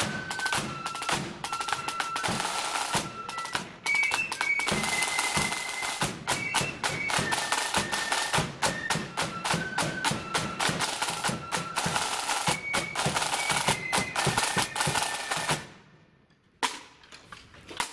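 A marching flute band playing a tune: flutes carry the melody over rapid snare drumming and bass drum beats. The music stops abruptly near the end, followed by a single knock.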